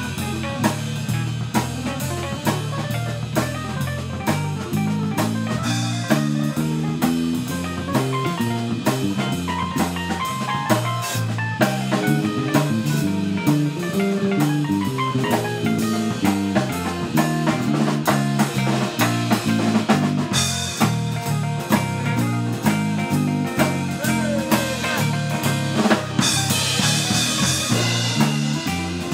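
Live jazz-blues quartet playing: a Nord Electro 2 keyboard over a walking bass line and a drum kit keeping a steady beat, with cymbal crashes a few times.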